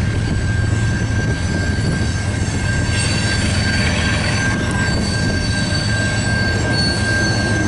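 Freight train cars rolling past at a grade crossing with a steady low rumble, and a steady high-pitched wheel squeal held over it.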